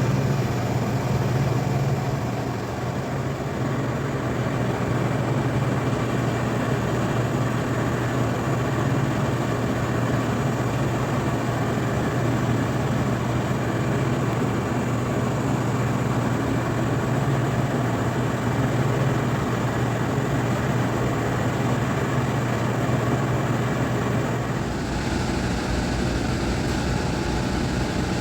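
A steady engine-like machine noise with a strong low hum. Its character shifts about 25 seconds in.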